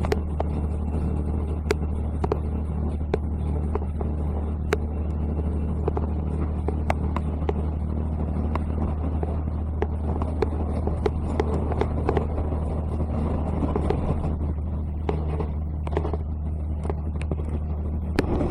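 Inside a diesel railcar running along the line: a steady low engine-and-running drone, with frequent sharp clicks and ticks from the wheels and car body.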